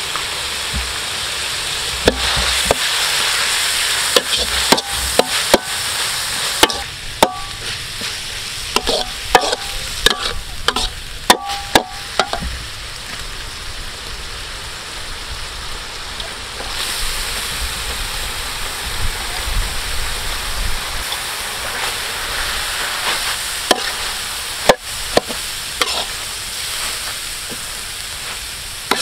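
Minced meat sizzling as it is stir-fried in a metal wok, with a steady hiss throughout. A metal spatula scrapes and clanks against the pan, in clusters of sharp ringing knocks through the first half and again near the end.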